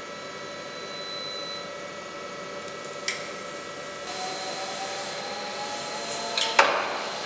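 Belt conveyor motor starting up and running as a pallet travels along the conveyor, with a faint whine, then a sharp knock as the pallet reaches its end stop. A small click comes about three seconds in, before the belt starts.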